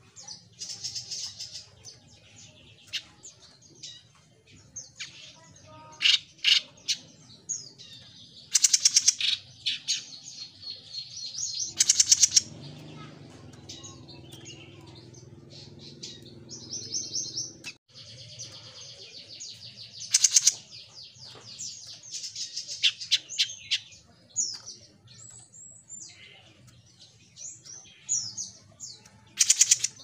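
Caged jenggot mini songbird singing a busy song of short, high chirps and whistled notes, broken several times by loud, fast rattling trills.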